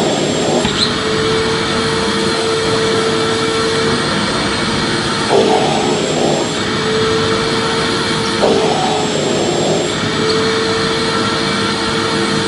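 Vacuum cleaner running continuously: a dense, steady rush of air with a steady mid-pitched motor hum. The hum wavers briefly about five and eight seconds in.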